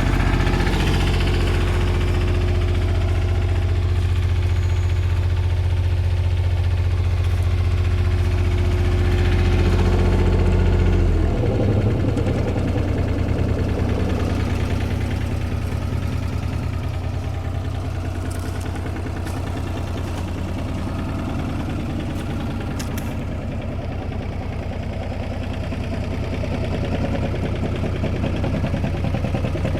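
Komatsu PC28UU mini excavator's small three-cylinder diesel engine running steadily, with a steady higher tone over it. About eleven seconds in, that tone stops and the engine settles into an even, pulsing idle, a little quieter.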